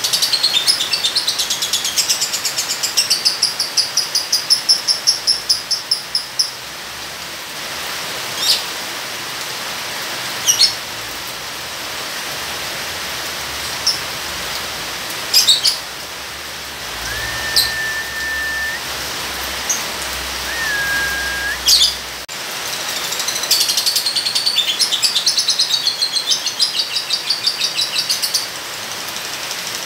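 A caged lovebird's fast chattering trill (ngekek), a long run of rapid high chirps over the first six seconds and again near the end, with single sharp chirps between and two short level whistled notes midway. A steady hiss of rain runs underneath.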